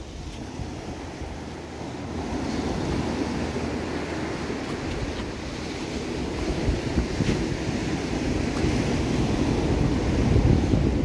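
Ocean surf washing onto the beach, mixed with wind buffeting the microphone; the low rumble grows louder toward the end.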